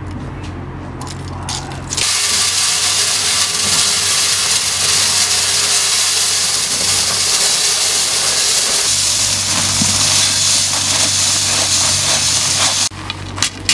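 Shingle gravel poured from a bag into the hole around a bollard housing box: a loud, steady rushing hiss that starts abruptly about two seconds in and runs for about eleven seconds. A low, steady engine-like hum runs underneath. Near the end the pouring stops and a bar tamping the fill gives a series of sharp knocks.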